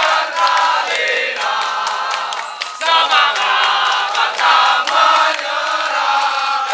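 A company of Indonesian soldiers chanting a military yel-yel in unison, a loud shouted group song of many men's voices, punctuated by sharp hand claps.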